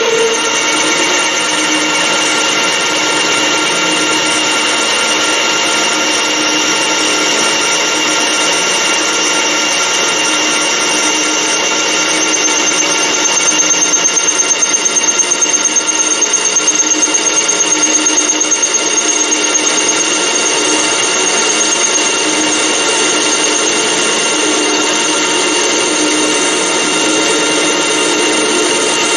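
Metal lathe running and turning aluminium bar stock, the tool cutting it to shape as a copy attachment follows a template. A steady whine of several tones, growing a little louder with a pulsing edge for several seconds around the middle.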